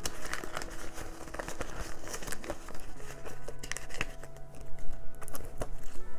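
Paper banknotes rustling and crinkling in the hands as a stack of bills is handled and slid into a clear plastic cash envelope.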